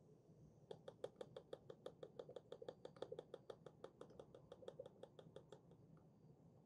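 Faint, rapid light clicking at about eight a second from the plastic spout of a gel-ball dispenser being tapped and jiggled to keep water-gel beads flowing into a blaster magazine; it thins out and stops near the end.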